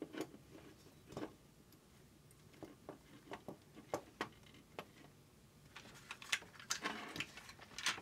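Scattered small clicks and taps of hands handling electrical wires and small wiring parts at a metal junction box. The taps come more thickly near the end.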